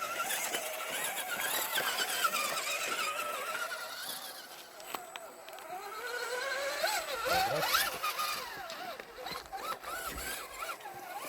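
Whine of an RC rock crawler's small electric motor and geared drivetrain, its pitch rising and falling as the throttle is worked.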